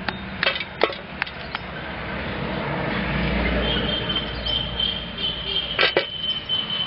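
A metal spoon clinks and scrapes sharply against an aluminium pot as glowing charcoal embers are dropped onto the lid of a dum biryani pot: a cluster of clinks in the first second and a half, and two more near the end. In between, a rushing noise with a low rumble swells and fades, and a thin high tone starts partway through.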